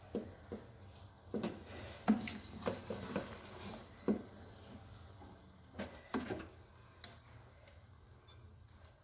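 Wooden spatula knocking and scraping against the side of an aluminium cooking pot as the layered rice of a biryani is mixed. The knocks are soft and irregular, and fewer and fainter after about six seconds.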